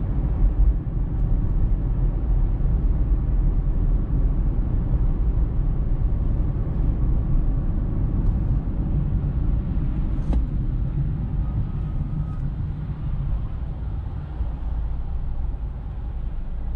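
Car driving, heard from inside the cabin: steady low road and engine rumble, with a short click about ten seconds in.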